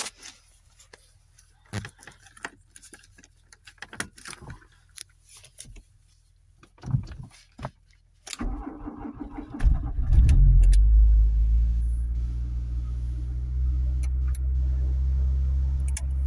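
Clicks and key handling in a car's cabin. About eight seconds in, the starter cranks a 1980s Volkswagen Golf's engine for about a second and a half in −9°C cold. The engine catches, revs up briefly and settles into a steady idle: a cold start.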